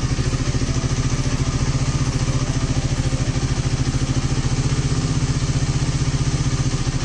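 KTM Duke 390's single-cylinder engine idling steadily. It is being run for a minute after a fresh coolant refill.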